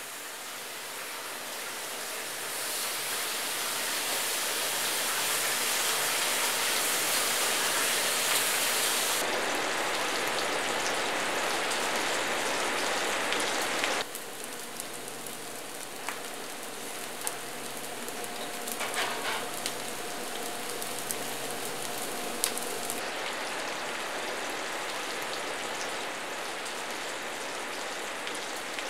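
Bacon sizzling in a stainless steel frying pan, growing louder over the first few seconds as the strips heat, then steady. About halfway it cuts to a quieter bubbling of fries frying in a deep-fryer basket, with a few light clicks.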